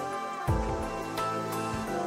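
Background music: soft, gentle instrumental with sustained notes and a low beat about half a second in.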